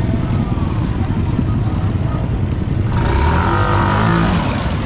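ATV engine running under way through rutted mud, with a steady low rumble; a higher, stronger engine note comes in about three seconds in.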